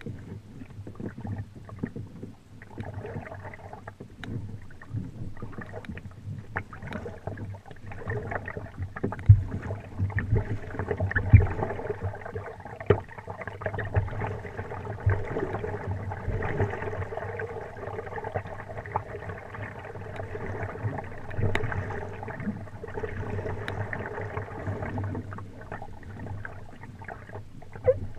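Kayak paddling: the double-bladed paddle dipping and splashing in calm lake water on alternating sides, with a few sharp knocks about nine and eleven seconds in. A steady hum runs underneath through most of it.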